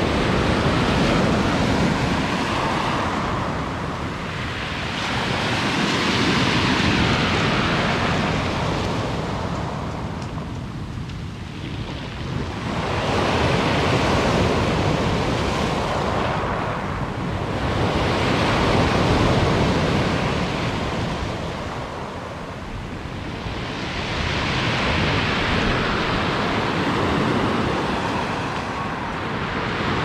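Sea surf breaking and washing up and back over a pebble beach, swelling and fading in waves about every six seconds.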